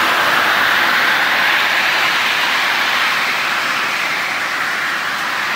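Plastic film squeezer granulator line running, a steady, loud rushing noise as squeezed PE/PP film is discharged through the stainless-steel cone into a bulk bag.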